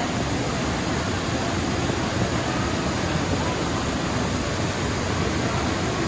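Steady, even rush of the Varone waterfall pouring down its narrow rock gorge.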